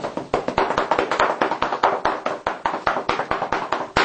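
Quick, even patting on a cat's back with a pair of red paddles, about six soft slaps a second.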